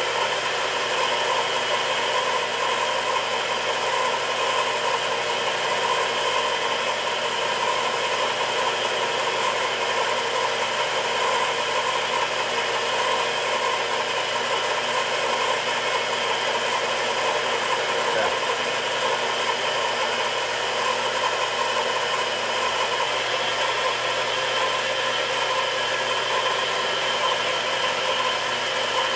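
Chinese mini lathe running steadily during a turning cut on a stepped bushing, its motor and gear train giving a constant mechanical hum and whine.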